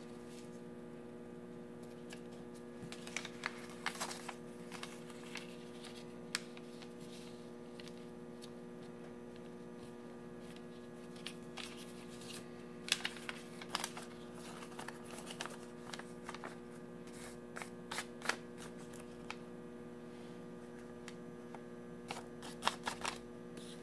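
Origami paper crinkling and rustling as it is folded and creased by hand, in scattered clusters of short clicks, over a steady electrical hum.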